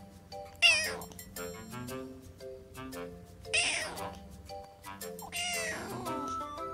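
Tabby kitten meowing three times, short high wavering calls, the first the loudest, over light background music.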